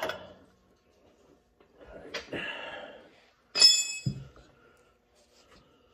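Metal tools and parts being handled: a clank, a rustling scrape, then a sharp metallic clink that rings briefly, followed by a low thump.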